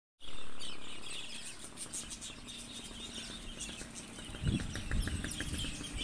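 Australian parrots in an aviary chirping: many short high chirps overlapping, with a run of quick evenly spaced chirps a few seconds in. A low rumble on the microphone comes in near the end.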